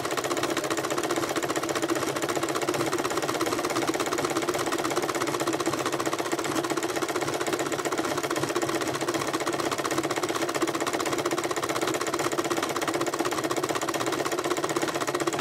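Electric sewing machine running steadily, its needle stitching fabric-wrapped rope onto the coiled wall of a rope bowl: a rapid, even ticking over a steady motor hum.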